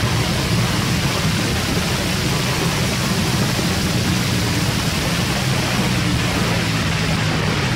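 Heavy wind rush over the bike-mounted camera's microphone at track speed, with a Ducati Panigale's engine held at steady revs beneath it.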